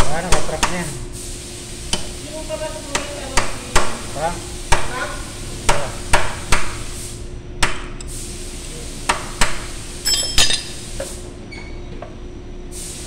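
Metal-on-metal knocks as a tool is tapped against a forklift wheel hub's bearing lock nut to set it, about one irregular knock a second, several with a brief metallic ring.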